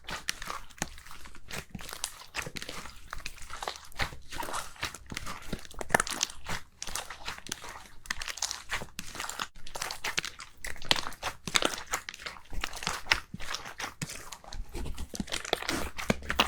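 Slime being squeezed and pressed by hand, giving a continuous run of crunchy crackles and pops.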